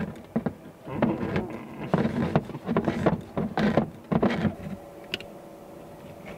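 Handheld crank can opener being turned around the lid of a metal tin, its cutting wheel working in a run of uneven clicking, grinding bursts that stop about four and a half seconds in, followed by one small click.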